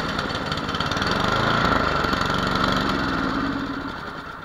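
Tecumseh HMSK80 8 hp single-cylinder engine of a Toro Power Max 826 LE snowblower running steadily just after starting, its fuel valve shut off so it runs itself out of gas. The sound grows quieter over the last second.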